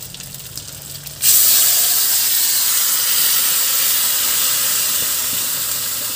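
Potato-and-papaya curry with its liquid poured into a wok of hot oil and fried fish. About a second in, a loud sizzling hiss starts suddenly as the liquid hits the hot oil, then slowly eases.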